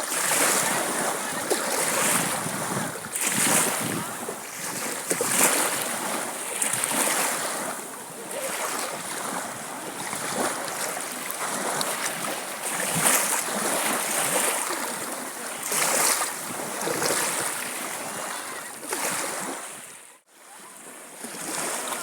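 Sea surf washing onto a beach, the noise swelling and easing with each wave. It cuts out briefly near the end.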